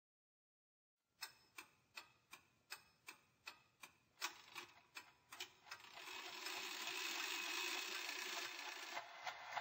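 Faint clock-like ticking, about three ticks a second, then from about six seconds in a swelling rush of noise, as the opening of a song.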